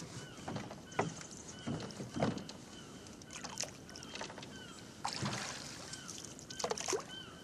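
Oars of a small rowboat dipping, splashing and knocking in their oarlocks as it is rowed, a sharp knock or splash every second or so. A faint, short squeak repeats over and over behind them.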